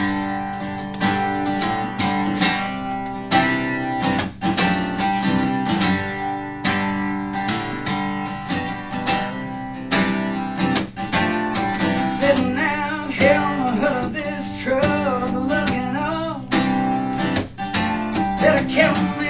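Live band performance led by strummed acoustic guitar playing a steady rhythm. A wavering melody line joins over the strumming about twelve seconds in.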